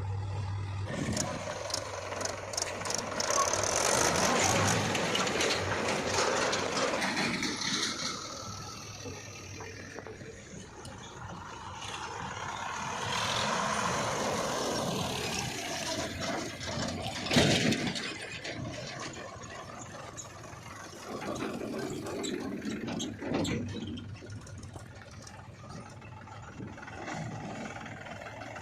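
Diesel earth-moving machinery working, its engine note rising and falling under load with rattling and hissing. There is one sharp, loud clank about seventeen seconds in.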